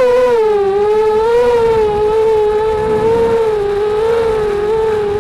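QAV250 racing quadcopter's electric motors and propellers whining at a steady pitch that wavers gently up and down.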